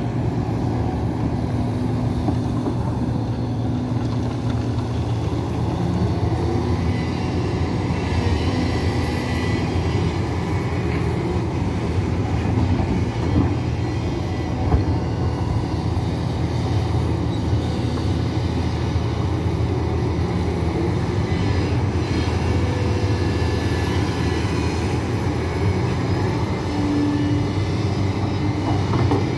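Hidromek HMK 500LC 50-tonne crawler excavator at work spreading excavated soil, its diesel engine running steadily under load. Brief higher steady tones rise over the engine now and then.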